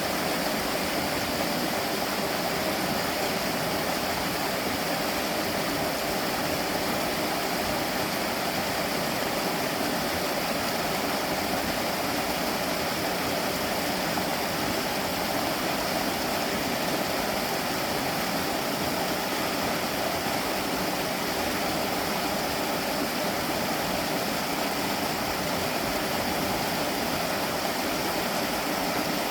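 Mountain valley stream flowing, a steady, even rush of water that does not change.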